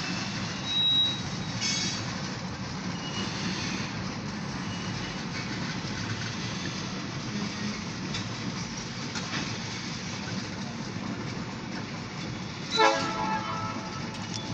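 A freight train of covered grain hopper cars rolling past: a steady rumble and clatter of wheels on rail, heard from inside a car. Near the end comes a short, loud pitched blast.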